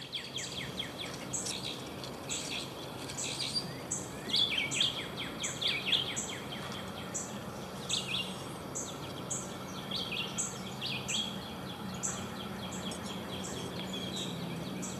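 Birds calling and singing: a high, short note repeated about twice a second, with bursts of quick falling chirps every second or two.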